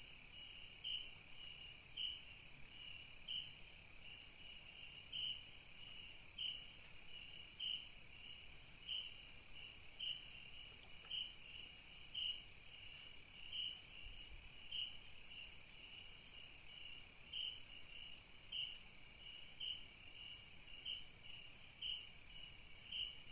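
Night-time forest insect chorus: a steady high-pitched hum with a repeated chirp, about three every two seconds.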